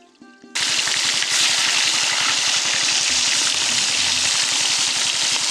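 Plucked-string background music cuts off about half a second in and a loud, steady hiss takes over, an even rushing noise strongest in the upper range.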